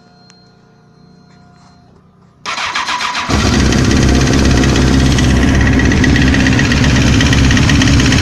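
Engine cranked on its starter about two and a half seconds in. It catches within a second and then idles loudly and steadily. The engine is being checked for an unexplained knock.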